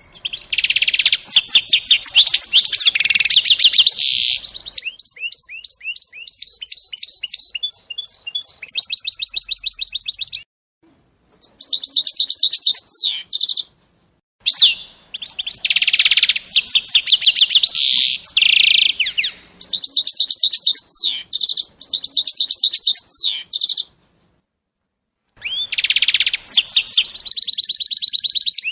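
A small songbird singing in long, loud phrases of rapid trills and quickly repeated high chirps, broken three times by short silences.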